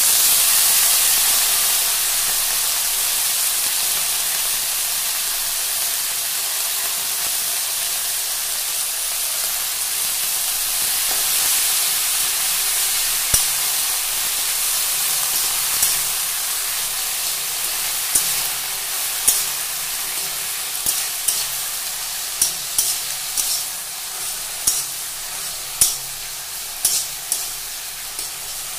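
Fresh leafy greens sizzling in hot oil in a steel wok. The loud hiss starts suddenly as they go in and slowly eases. About halfway through, a metal spatula starts clinking against the wok as it stirs them, more and more often towards the end.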